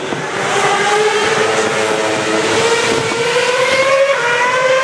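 Fireworks spectators cheering with a long, held 'woo' whose pitch rises slowly, other voices joining in near the start.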